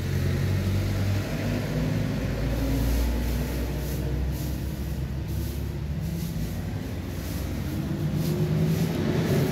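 An engine running steadily, its pitch rising slowly near the end.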